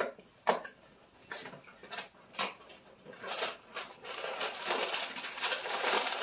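A cardboard cereal box is handled with a few sharp crinkles and knocks. Then, from about four seconds in, Wheat Chex cereal pours from the box into a slow-cooker pot full of cereal, making a dense, steady rattle.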